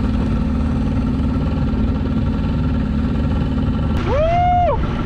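Outboard motor of an open wooden fishing boat running steadily under way, with water rushing past the hull. About four seconds in, a person's voice lets out one drawn-out call that rises and then falls in pitch.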